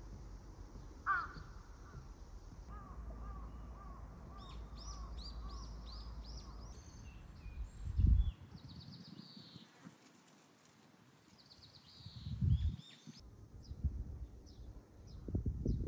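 Wild birds calling in woodland: one louder call about a second in, then a run of about eight repeated calls, with small birds chirping high above throughout the middle. A few low thumps sound near the middle and the end.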